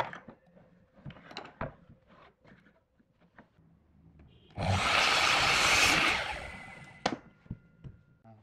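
A power tool working wood in one short burst of about a second and a half near the middle, starting abruptly and then fading away. Before and after it come scattered knocks and clicks of wood and tools being handled.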